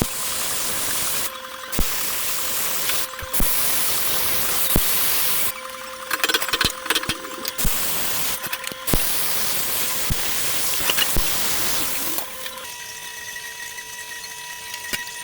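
TIG welding arc on stainless steel: an even hiss in stretches of one to four seconds, with short breaks and clicks between the welds. It drops to a quieter steady hum near the end.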